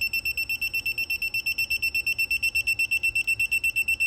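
Digital torque wrench beeping rapidly, about nine high-pitched beeps a second, as the half-inch refrigerant line's flare nut is tightened toward its 35 ft-lb setting.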